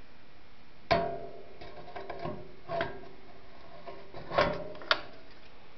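Several sharp metal clunks and clicks from a 1950s Stamp Masters stamp vending machine's cabinet as its front cover and lock are worked, each ringing briefly. There are four knocks spread across the few seconds, two of them close together near the end.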